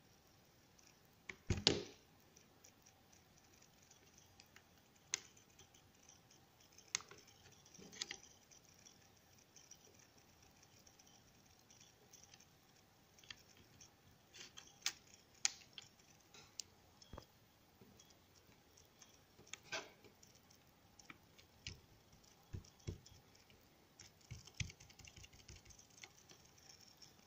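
Fingers pressing and tapping on the bare circuit board and plastic case of an opened Asus Eee PC netbook: scattered small clicks and taps every few seconds. The loudest is a knock about a second and a half in, and there is a cluster of softer low taps near the end.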